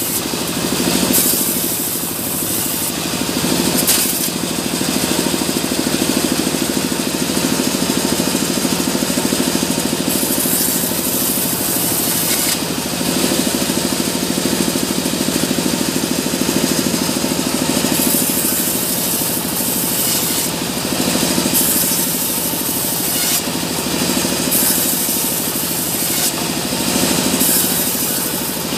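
Sawmill bandsaw running with a steady hum while its blade rips through a wooden block. The higher cutting noise comes and goes several times as the wood is pushed through the blade.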